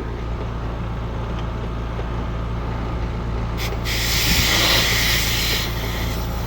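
Refrigerant hissing from a charging hose as it is hooked onto a T-adapter service fitting: a short spurt about three and a half seconds in, then a steady hiss for about two seconds that tails off. A steady low hum runs underneath.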